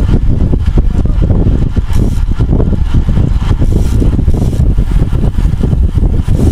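Wind buffeting the microphone of a camera riding on a moving bicycle: a loud, dense low rumble that flutters constantly.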